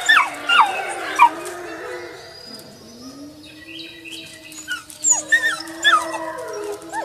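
Wolf pups yipping in short, sharp yelps that fall in pitch. About two and a half seconds in, one pup starts a long, low howl that rises and then holds steady, while the others break into yips again near the end.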